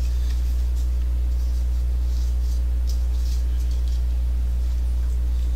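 Steady low hum, with faint rustling of trading-card packs about two to four seconds in.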